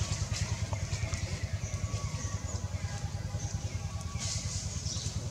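A small engine idling nearby: a steady low throb that pulses about nine times a second.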